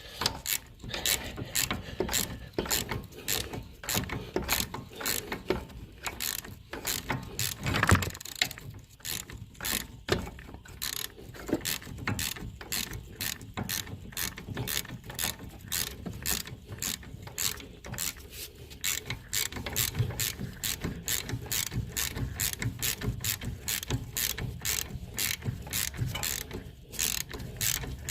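Hand ratchet wrench clicking steadily, a few clicks a second, as a stubborn stabilizer link bolt is worked loose with a T30 Torx bit.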